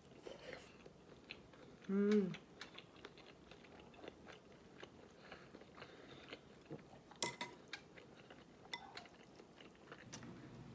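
Close-up chewing of braised pork belly, with small wet mouth clicks and light taps of metal chopsticks. A short hummed 'mm' about two seconds in is the loudest sound.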